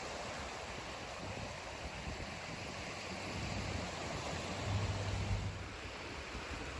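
Steady rush of sea surf and wind, with a brief low rumble swelling about five seconds in.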